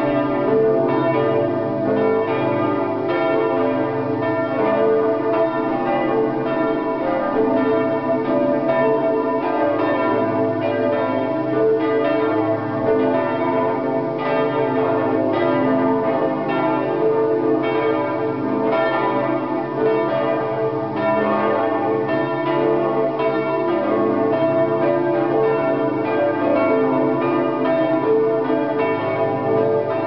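Full peal of the St. Margaretha church bells swinging in the tower. Several bells strike over one another in a steady, unbroken stream.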